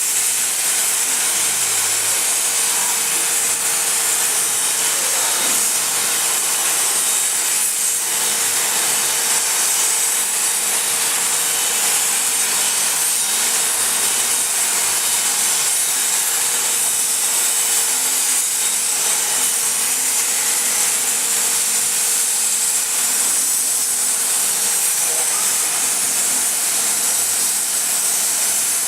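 CNC plasma cutting machine's torch cutting metal: a steady hissing rush of the plasma arc, with a faint constant tone underneath.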